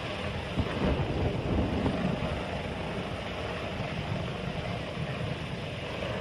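A helicopter hovering overhead over rushing floodwater, with wind buffeting the microphone in a dense, steady rumble.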